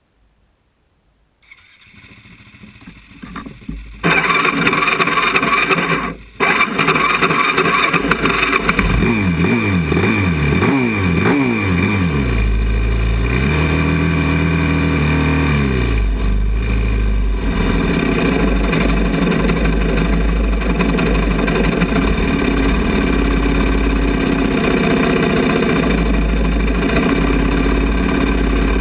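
Yamaha 450 quad's single-cylinder four-stroke engine starting about four seconds in, dropping out briefly, then revved in quick blips and one longer rev up and down before running steadily at idle.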